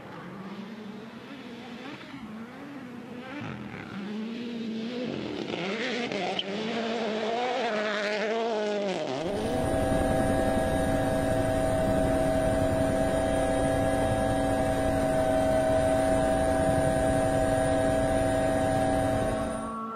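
Toyota GR Yaris Rally1 car's turbocharged engine revving hard, its pitch climbing and dropping again and again through gear changes and lifts. About nine seconds in it gives way abruptly to a louder, steady drone of constant pitch over a dense rushing noise.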